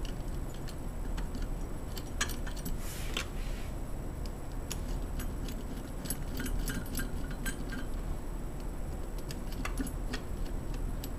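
Light metallic clicks and clinks of deadbolt lock hardware being handled and adjusted, with a brief scrape about three seconds in, over a steady low hum.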